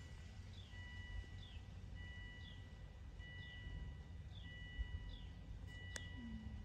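An electronic chime sounding a steady beep over and over, on and off about once a second, with short falling chirps between the beeps. There is a single sharp click about six seconds in.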